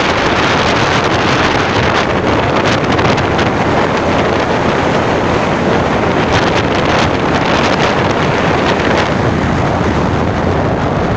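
Waterfall rushing steadily: a loud, even roar of falling water.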